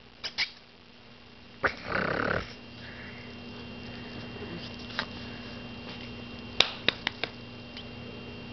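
Maltipoo puppy at play giving a short breathy snort about two seconds in, with scattered light clicks and taps around it.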